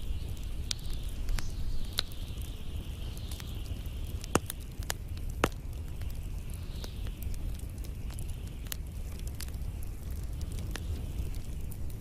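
Log and pine-cone fire crackling, with irregular sharp pops, the two loudest a little past four and five seconds in. Under the pops are a steady low rumble and a soft hiss.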